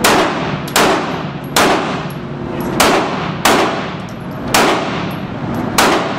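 Handgun shots fired one at a time at an uneven pace, seven in about six seconds, each with a long ringing echo off the walls of an indoor range.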